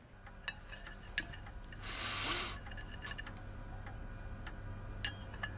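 Quiet room with a steady low hum and a few small clinks and ticks. About two seconds in there is a short, breathy sniff.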